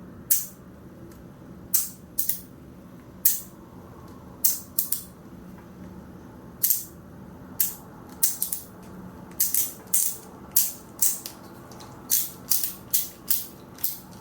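ACEDC Rabbit fidget clicking and clacking as it is worked by hand: irregular sharp clicks, some single and some in quick clusters, coming more often in the second half. Super noisy.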